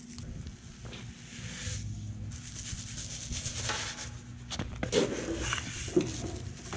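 Granular floor absorbent poured from a bucket onto a concrete floor and scuffed over a fluid spill with a shoe, giving a gritty, hissing pour and scraping that swells twice.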